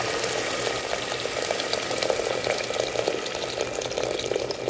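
Water pouring in a steady stream into an aluminium pressure-cooker pot, splashing over pieces of sautéed chicken breast.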